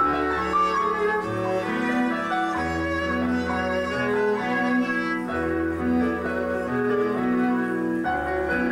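Live bowed strings, a violin and a second violin-family instrument, playing slow held chords over low sustained bass notes. The harmony changes about every second and a half.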